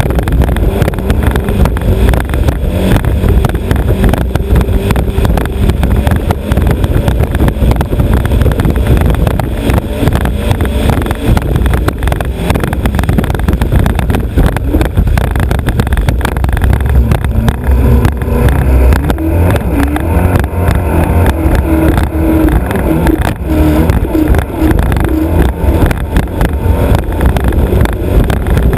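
Vintage three-point racing hydroplane under way at racing speed: its Alfa Romeo Autodelta 2.5 V6 engine runs hard under heavy wind rush and hull-on-water noise. The engine note comes through more clearly in the second half.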